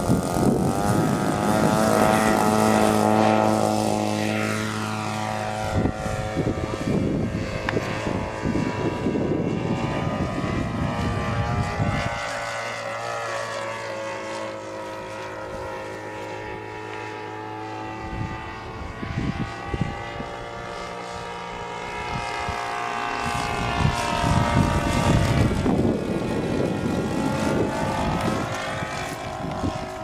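26cc petrol engine of a Seagull Edge 540 radio-control model aeroplane running at high throttle through take-off and climb-out. Its pitch rises and falls as the plane flies away. It is loud at take-off, fades in the middle and grows loud again as the plane comes back past, near the end.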